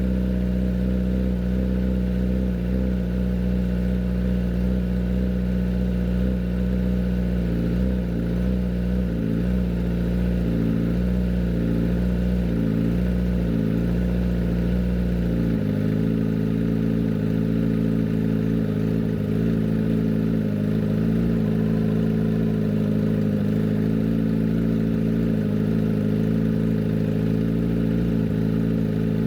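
Kawasaki ZX-10R inline-four engine running at idle through an SC Project CRT exhaust, a steady exhaust note whose tone changes abruptly about halfway through.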